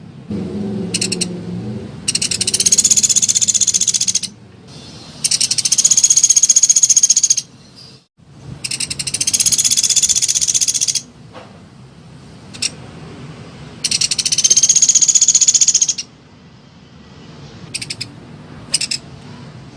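Bird lure call: a rapid, high-pitched trill in bursts of about two seconds, repeated four times with short pauses and a few brief chirps in between. A low rumble runs underneath for about a second near the start.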